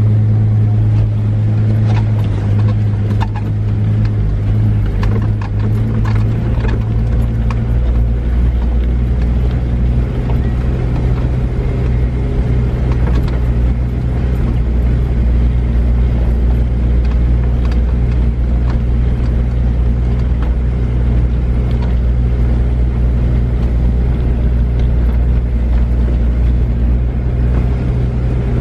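Toyota truck's engine droning steadily, heard from inside the cab as it drives slowly over a stony riverbed, with scattered knocks and rattles from the rough ground in the first several seconds. About seven seconds in, the engine note shifts lower.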